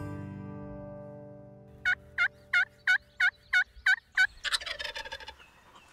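Guitar music fading out, then a run of eight short, evenly spaced turkey calls about three a second, followed by a rapid rolling wild turkey gobble that tails off.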